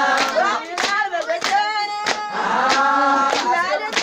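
Several voices singing or chanting together, with hand claps keeping an even beat of about one and a half claps a second.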